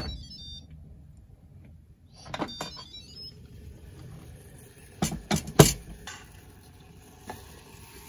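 Instant Pot lid being twisted open and lifted off the pot after a quick release: short high-pitched tones as the lid turns at the start and again about two and a half seconds in, then a few sharp knocks about five seconds in as the lid is handled and set down, with a lighter knock a couple of seconds later.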